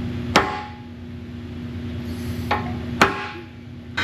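Hammer striking a center punch on steel to mark a drilling spot: a sharp strike about a third of a second in, a lighter tap about two and a half seconds in, then another sharp strike, each with a brief metallic ring.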